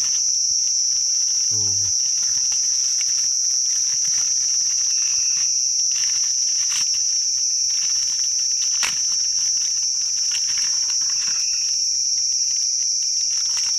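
A dense chorus of night insects, crickets among them, making a steady high-pitched drone. Faint crinkles and ticks of a plastic food pouch being handled come through here and there.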